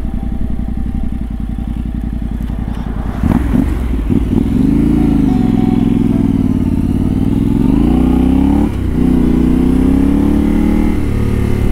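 Yamaha Ténéré 700's parallel-twin engine running with an even low pulse, then its pitch dipping and climbing again as the engine speed falls and rises. A short break a little before the nine-second mark, like a gear change, leads into a steadier pitch.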